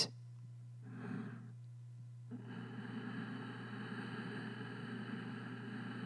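Soft breathing between spoken phrases: a short breath about a second in, then a longer, steady breath from a couple of seconds in. A steady low hum lies underneath.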